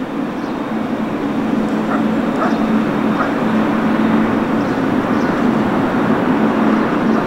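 Jet engines of a Korean Air Boeing 777-300ER (GE90-115B) running steadily, a continuous rumble with a low drone that swells a little midway.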